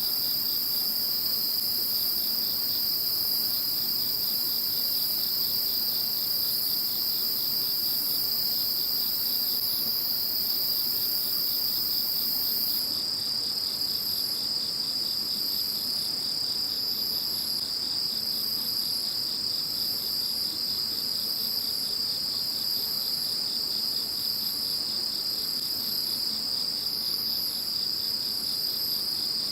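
Night chorus of singing insects: several overlapping steady high-pitched trills. About halfway through, the highest voice changes from a continuous trill to a chirp repeated a little more than once a second.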